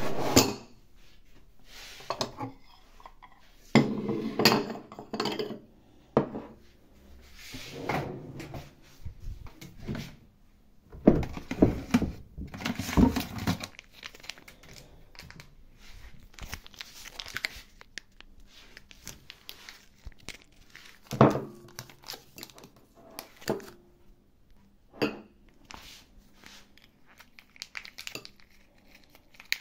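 Foil pouch of wet cat food crinkling as it is handled and squeezed out, with ceramic bowls knocking and clinking, in irregular bursts.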